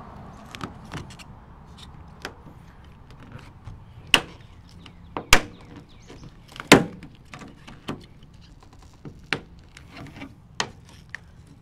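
Chrome Ram tailgate emblem being pried off by hand: a series of sharp clicks and cracks as its clips snap and the chrome face breaks away from its backing plate. The loudest three come close together in the middle.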